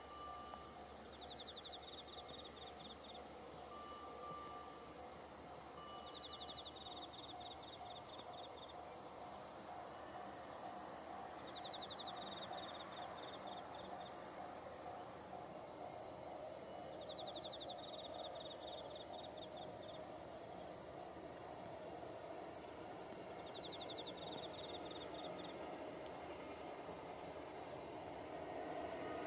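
Insects chirping: a pulsed trill about every five seconds over a steady high-pitched insect whine, with the faint running noise of a distant freight train slowly growing underneath.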